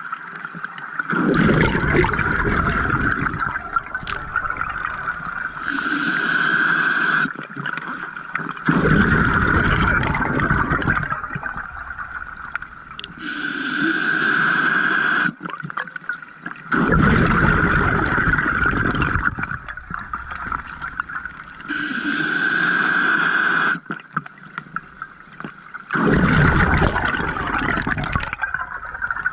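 Scuba diver breathing through a regulator underwater: a short hissing inhale, then a long burst of bubbling exhaust, about every eight seconds. There are four exhales.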